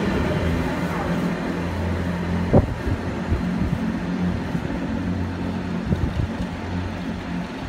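Class 166 diesel multiple unit pulling away, its diesel engines droning steadily under power. A few sharp knocks come through, the loudest about two and a half seconds in and another about six seconds in.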